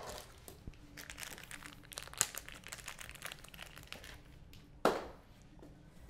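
Crinkling, rustling handling noise close to the microphone, made of many small ticks, with one louder knock about five seconds in.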